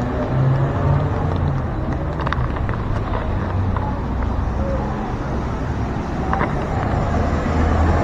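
Street traffic: a motor vehicle's engine running close by, with a steady low hum over general road noise.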